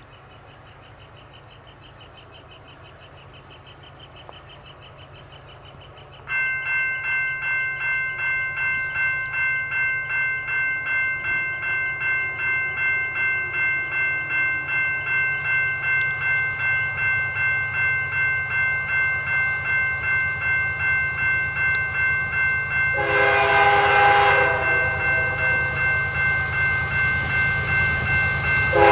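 Electronic railroad grade-crossing bell switching on suddenly about six seconds in and dinging steadily, about twice a second. An approaching diesel locomotive's horn sounds one short blast near the end and starts another right at the close.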